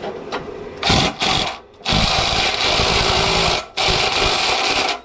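Power tool driving a stuck exhaust manifold fastener, run in bursts: two short blips about a second in, then two longer runs of about two seconds and one second. The fastener stays seized and won't come loose.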